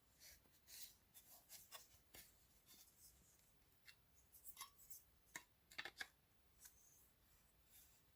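Near silence broken by faint, scattered small clicks and rubs of hands handling loudspeaker parts, a few slightly sharper clicks about five to six seconds in.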